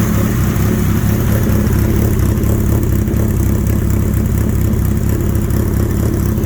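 1983 Suzuki GS 1100E's air-cooled inline-four engine idling steadily, nice and quiet, running smoothly at a settled idle.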